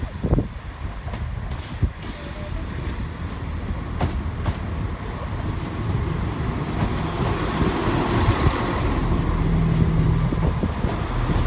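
CrossCountry Class 170 Turbostar diesel multiple unit passing close along the platform. Its diesel engines and its wheels on the rails grow steadily louder as the carriages come alongside.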